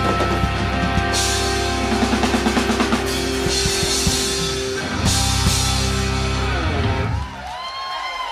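Live rock band's big closing ending: a fast drum roll and cymbal crashes over held guitar and keyboard chords. The final chord is cut off about seven seconds in, leaving a few sliding tones ringing.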